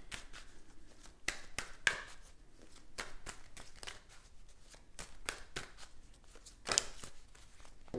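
A deck of tarot cards being shuffled by hand, overhand: a run of irregular soft card slaps and rustles, several a second, with a few louder slaps.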